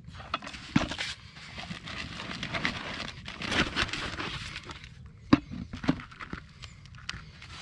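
Damp groundbait being poured into a riddle and rubbed by hand through its wire mesh: a rough, rustling scrape, broken by a few knocks, the sharpest about five seconds in.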